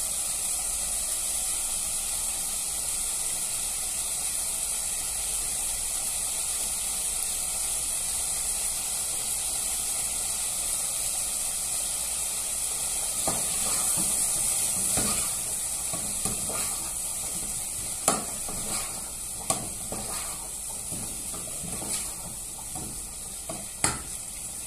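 Meat and onion frying in oil in a pan, a steady sizzle. In the second half there are a few sharp clicks and knocks of utensils.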